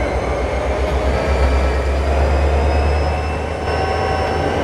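Diesel locomotive sound effect: a deep steady engine rumble with a faint high whine, swelling about a second in and easing off near the end.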